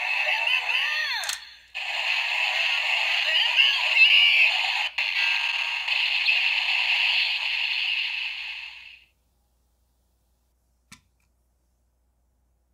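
Boonboomger DX Boonboom Handle toy playing its finisher audio through its small built-in speaker: a thin, tinny electronic voice call, then a long burst of sound effects and music that fades out about nine seconds in. One small click follows near the end.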